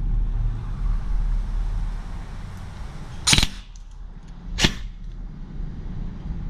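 G&G ARP9 electric airsoft gun firing twice on three-round-burst mode, two sharp cracks about a second and a half apart, over a steady low rumble of wind on the microphone.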